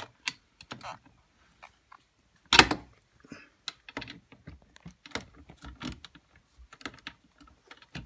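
Light, irregular clicks and knocks of a 17 mm socket and ratchet being worked on a seatbelt anchor bolt, with one sharp louder knock about two and a half seconds in.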